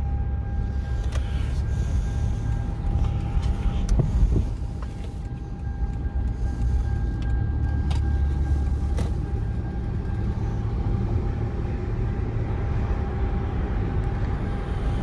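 Car interior road noise while driving: a steady low rumble of engine and tyres, with a faint steady high-pitched tone and a few light knocks, the loudest about four seconds in.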